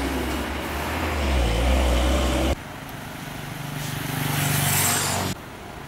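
Road traffic: truck and motorcycle engines running in a slow-moving queue, with a deep rumble. The sound changes suddenly about halfway through to a second stretch of traffic where an engine note grows louder, then it drops off sharply near the end.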